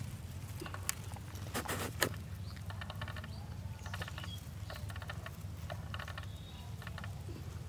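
Outdoor field ambience: a steady low hum under short insect chirps that come about once a second, with a brief rustle and click a couple of seconds in.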